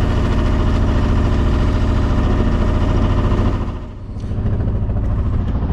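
A sailboat's auxiliary diesel engine running steadily under way, a low, even drone. It dips briefly about two-thirds of the way through and then picks up again.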